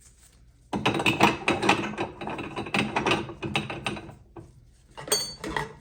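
The auger of a VEVOR meat grinder being fitted into the grinder head: about three seconds of dense rattling and scraping clicks, then a short ringing clink near the end.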